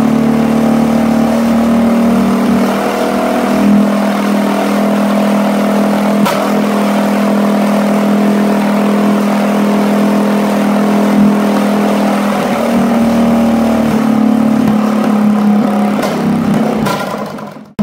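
Predator 212 single-cylinder four-stroke engine, with an aftermarket header and intake, held at full throttle near 5,000 rpm, running steadily against its modified governor. Near the end the sound fades quickly and cuts off.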